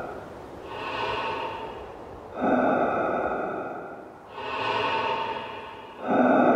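Slow, heavy breathing through a respirator mask as a sound effect, two breaths in and out, each swelling and then fading away with a hollow ringing tone.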